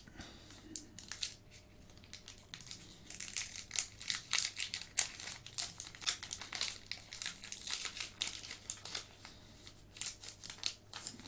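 Foil wrapper of a Pokémon TCG Evolving Skies booster pack crinkling as it is handled and opened by hand: a rapid crackle of many small crinkles, busiest from about three to seven seconds in and again near the end.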